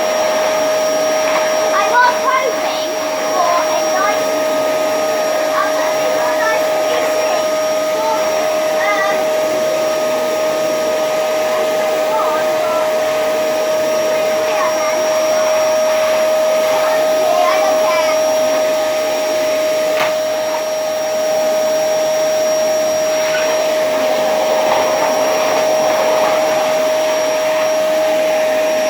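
Vax Power 6 vacuum cleaner running steadily, its motor giving a constant pitched hum over the rush of air.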